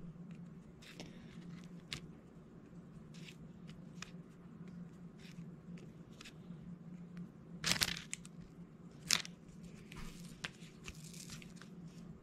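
Diamond-painting work: small scattered clicks and taps as resin drills are picked up with a drill pen and pressed onto the sticky canvas, with two louder crinkly scrapes a little past the middle, over a low steady hum.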